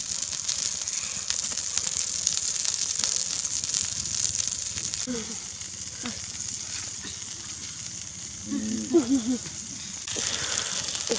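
Chicken eggs and yolks sizzling on a hot stone over a wood fire: a steady high hiss with faint crackles. A brief voice breaks in near the end.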